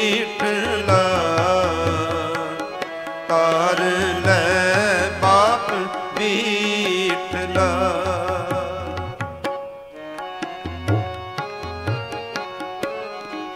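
Gurbani kirtan music: a wordless melody line wavers and glides over a steady harmonium for about the first eight seconds. After a brief dip it gives way to harmonium and tabla strokes.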